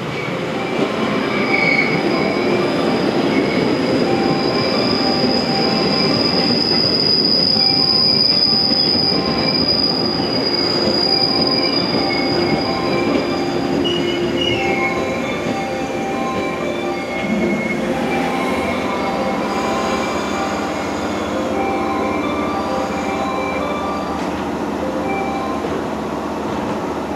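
A yellow JR West 115-series electric train, two coupled sets, pulls in alongside the platform and brakes to a stop. The wheels and running gear rumble, and a long high brake squeal is held for several seconds in the first half.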